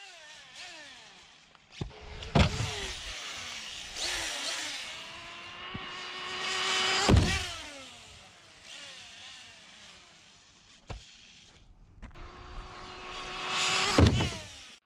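Electric RC car's brushless motor whining as it speeds toward a jump ramp, rising in pitch, then gliding down after each launch. A sharp knock marks each of three passes, about two seconds in, about seven seconds in and near the end as it hits the ramp.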